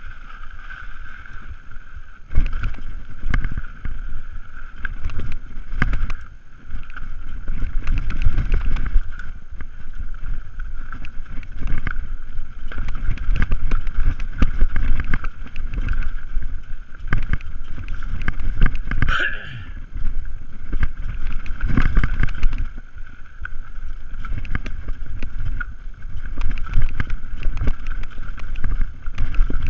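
Mountain bike descending a dirt trail: the bike rattling and clattering over bumps and roots, tyres on dirt and wind buffeting the rider-mounted camera's microphone. A brief high-pitched squeak about two-thirds of the way through.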